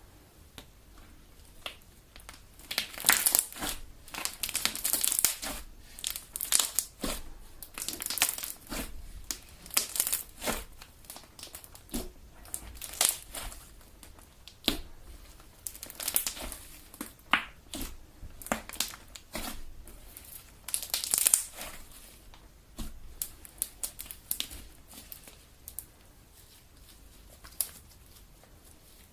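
Elmer's Galaxy slime being kneaded and squeezed by hand, giving an irregular run of crackling, squishing sounds, busiest and loudest in the first two thirds and sparser near the end.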